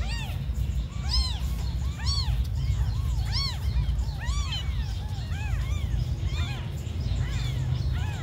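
Several newborn kittens mewing over and over, thin high cries that rise and fall in pitch, about two a second and overlapping, over a steady low rumble.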